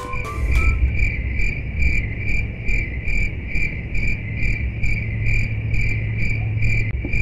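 Insects chirping in an even rhythm, about two chirps a second, over a low steady rumble.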